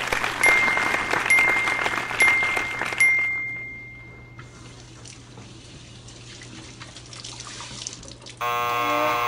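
Water running from a tap, with a bright metallic ding struck four times over the first three seconds. The water then runs on more quietly, and a short music sting starts near the end.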